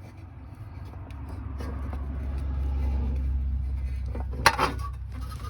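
A low rumble swells over the first three seconds and eases off, with a few faint clicks as hands work at the van's dashboard. About four and a half seconds in comes one sharp click, as a relay's plastic connector is unclipped.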